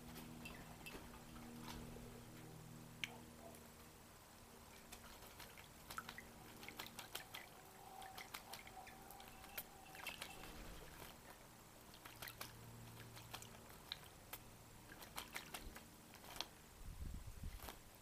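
Red-capped parrot bathing in a shallow bird bath: faint, scattered splashes and drips of water as it dips and fluffs its feathers.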